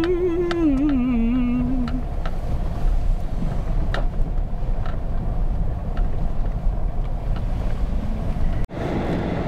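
Steady low rumble of a GMC pickup's engine and tyres heard from inside the cab while driving. In the first two seconds a man's voice hums a short falling tune over it.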